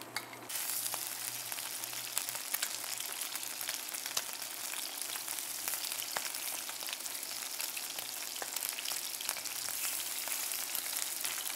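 Trout pieces frying skin-down in hot oil in a skillet: a steady sizzle with frequent sharp crackles and pops. The sizzle starts about half a second in.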